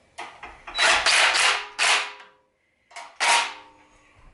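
Cordless power driver run in about four short bursts, each a second or less, tightening the bolts that hold a generator's airbox on, with a pause about two and a half seconds in.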